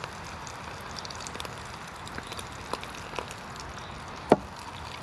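Wood fire burning in a log hobo stove: scattered sharp crackles and pops over a steady hiss, with one louder pop or knock about four seconds in.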